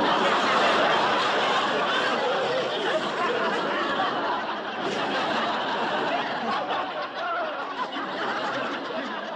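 Several people laughing and chattering together, a continuous mix of laughter and voices.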